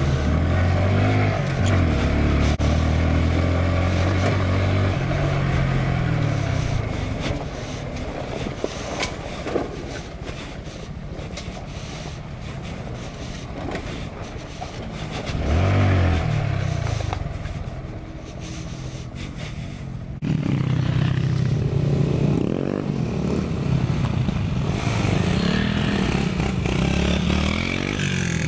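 Icebear Champion CT70-style minibike's small single-cylinder four-stroke engine, ridden over a rough dirt trail: revving up and easing off again and again as it runs through the gears, with knocks and rattles from the bike over the bumps.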